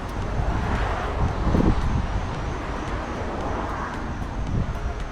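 Steady outdoor background noise with a low rumble of wind on the microphone; it swells briefly about a second and a half in.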